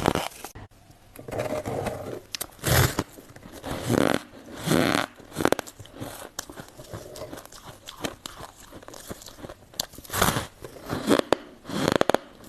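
Hard ice being bitten and crunched between the teeth close to the microphone: a string of loud, sharp crunches at uneven intervals, with quieter chewing of the pieces in between.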